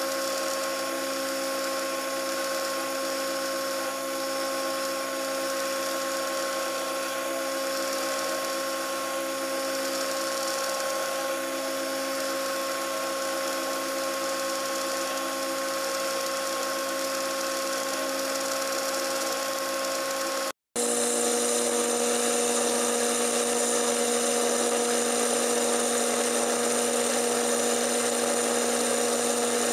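Sherline mini mill cutting a steel block with an end mill: a steady spindle-motor whine over the hiss of the cut. Partway through, the sound cuts out for an instant and comes back a little louder and lower in pitch.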